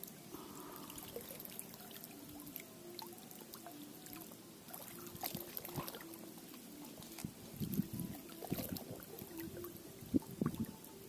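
Shallow water sloshing and trickling right at the microphone, which sits at the waterline, with scattered small clicks. The splashing grows louder in the second half.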